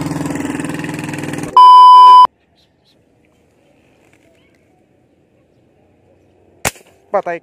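A passing motor bangka's engine runs for the first second and a half. It is cut off by a loud, steady electronic beep lasting under a second. After a few seconds of near silence, a single sharp airgun shot sounds just before the end.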